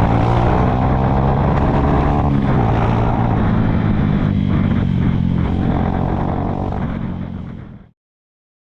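Honda Fan motorcycle's single-cylinder engine running on a test ride. The pitch falls over the first two seconds as it slows, then holds steady, and the sound fades and cuts off near the end. The carburettor needle has been raised one notch to cure bogging at high revs.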